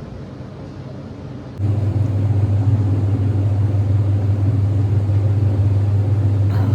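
A loud, steady low hum from a running machine, which starts abruptly about a second and a half in.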